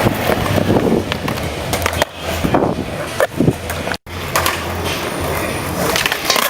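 Skateboard rolling on hard ground with a low, steady rumble, broken by sharp clacks and knocks of the board. The sound breaks off for an instant about four seconds in, then picks up again.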